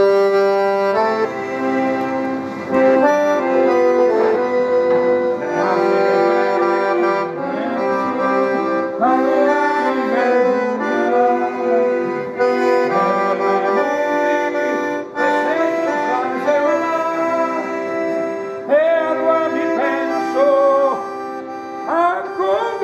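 Accordion playing a tune: a moving melody over held chords.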